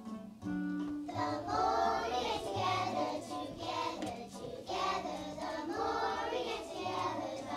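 A group of young children singing together; an acoustic guitar plays a few notes alone before the voices come in about a second in.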